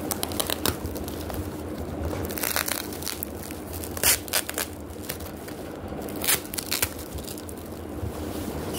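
Plastic packaging and bubble wrap crinkling and rustling as they are handled and pulled from a cardboard box, with a few sharp crackles, the loudest about four seconds in and again past six seconds.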